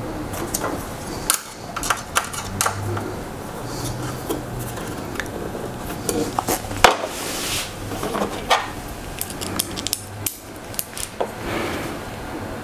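Irregular metal clicks and clinks from a Harbor Freight TV mount's metal brackets, M4 screws and a hex key being handled and worked as the brackets are screwed onto the back of a flat-screen TV.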